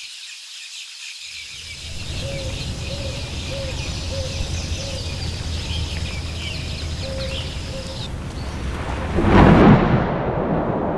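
A low, steady rumble of distant thunder with birds chirping over it. About nine seconds in, the rumble swells into a louder rush.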